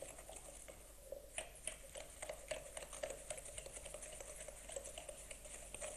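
Butter and sugar being creamed by hand in a glass bowl: quick, irregular light clicks and scrapes of the utensil against the glass.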